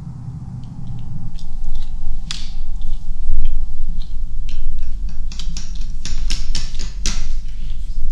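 Quick irregular clicks and clacks of poker chips and playing cards being handled on a table, busiest in the second half, over a steady low hum.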